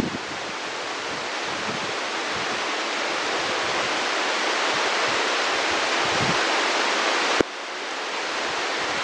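Heavy monsoon rain falling steadily, an even rushing hiss. About seven seconds in there is a sharp click and the level drops suddenly, then swells back.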